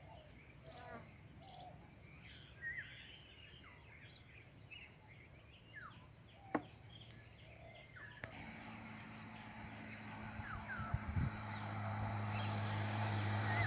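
Steady insect drone with scattered bird chirps and a single sharp click about six and a half seconds in. From about eight seconds in, a motorcycle engine approaching along the road, humming and growing gradually louder.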